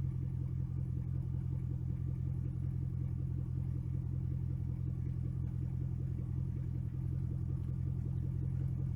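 2004 Jeep Grand Cherokee's 4.7 HO V8 idling steadily after a cold start, a low, even exhaust rumble through a Magnaflow 4-inch round muffler that dumps under the body.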